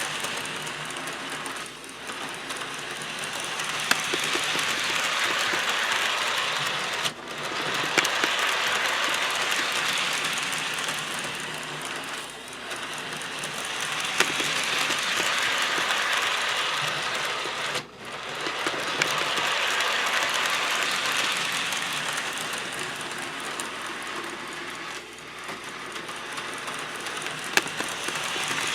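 HO scale model train, a Bachmann Percy locomotive pulling refrigerator vans, running on track: a steady whir of motor and wheels that swells and fades every several seconds, with a few sharp clicks.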